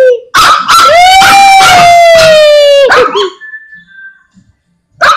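A dog howling: one long howl, rising a little at first and then slowly sinking in pitch, held for about two and a half seconds, followed near the end by a short, sharp yelp.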